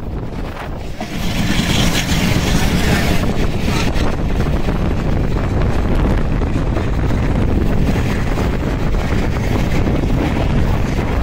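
A passenger train running at speed, heard from an open door or window of a moving coach: a steady low rumble with heavy wind rushing over the microphone. The wind swells about a second in.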